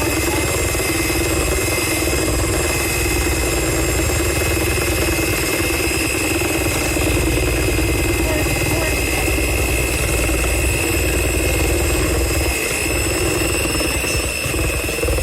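Electric mixer motor running steadily with a continuous whine and hum, as when beating cake batter; it eases briefly near the end.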